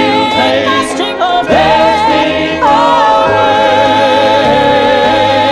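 Gospel vocal group singing in harmony. About a second and a half in, one voice rises to a long held note with vibrato over the other parts.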